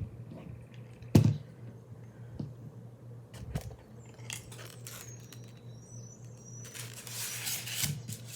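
Metal Ginger Snaps medallion-style snap buttons being handled: one sharp clack about a second in, a few lighter clicks, then rubbing and scraping near the end. A steady low hum runs underneath.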